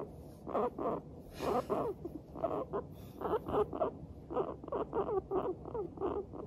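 Guinea pig making a run of short, quick 'pu-pu-pu' chutting calls, about three a second, the contented chatter of a guinea pig in a good mood.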